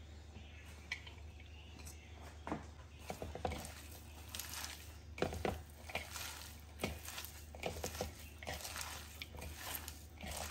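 A hand tossing and squeezing shredded boiled chicken, fresh spinach leaves and corn in a ceramic bowl: soft, irregular rustling and squishing with occasional light knocks against the bowl.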